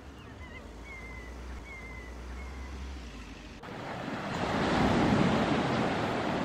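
Sea waves washing in on the beach as the tide comes in: a loud rushing surge that starts abruptly about three and a half seconds in, peaks and eases off, with wind on the microphone. Before it, faint wind rumble and a few thin high chirps.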